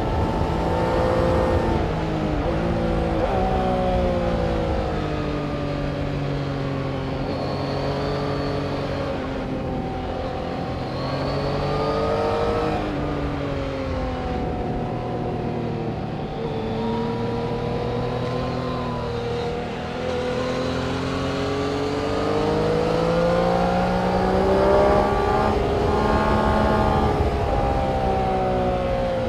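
Several racing motorcycle engines run hard on a circuit at once, their notes overlapping. The revs drop away and climb back up as they brake and accelerate, and they are loudest near the end.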